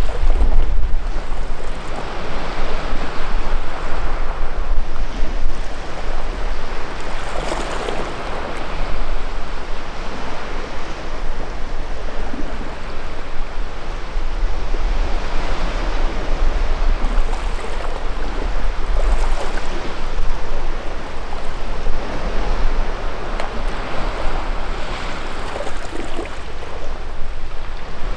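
Sea waves washing against a rocky shore, the surge swelling and fading every several seconds, with wind rumbling on the microphone.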